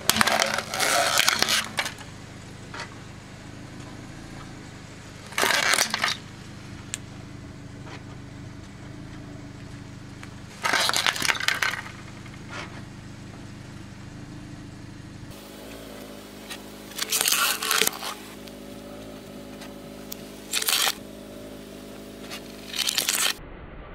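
A hard plastic toy case cracking and crunching under a car tyre, in about six short bursts, over the low steady hum of the car's engine.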